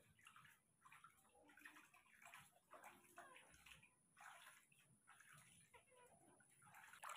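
Faint, irregular splashing and sloshing of water in a plastic basin as hands wash a baby monkey.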